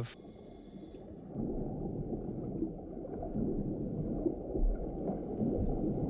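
Muffled underwater ambience: a low, churning water noise with faint gurgles, getting louder about a second and a half in.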